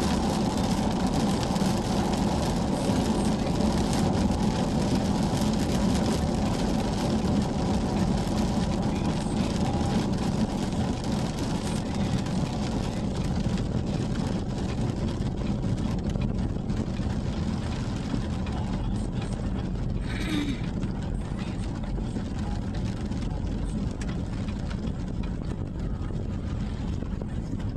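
Car driving on a rain-soaked road, heard from inside the cabin: steady tyre-and-water road noise over a low engine hum. It eases a little toward the end.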